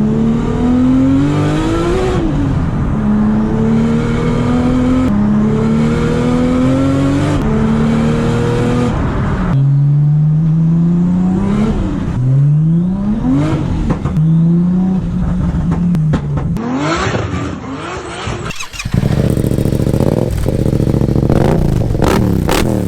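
Modified Nissan Skyline R33 engine accelerating hard through the gears, its note climbing in pitch and dropping back at each gear change. About three-quarters of the way in, the sound changes abruptly to a steadier engine rumble.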